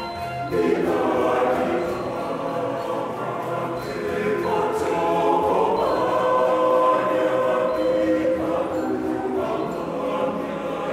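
Large mixed choir singing in parts, the voices coming in loudly about half a second in.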